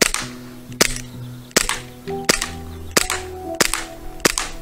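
Umarex Beretta M9A3 CO2 blowback BB pistol fired in a steady string: about seven sharp shots, roughly three-quarters of a second apart. Background music plays under the shots.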